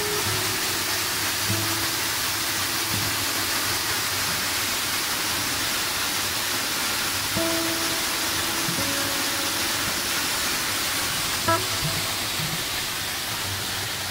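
Waterfall pouring close by as a steady rushing hiss of falling and splashing water, with sparse acoustic guitar notes of background music over it.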